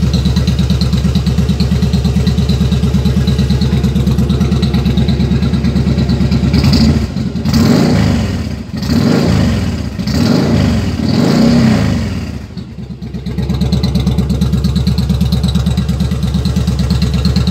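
Yamaha Drag Star cruiser's V-twin engine idling with an even pulse, then blipped on the throttle grip about four times from about seven seconds in. Each rev rises and falls back, and the engine settles back to a steady idle near the end.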